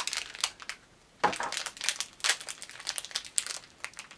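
Plastic snack wrapper of a box of Pocky being opened and handled, a run of irregular crinkles and crackles.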